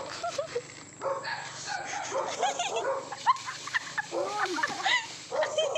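A dog barking repeatedly in short calls, with a single sharp knock about three seconds in.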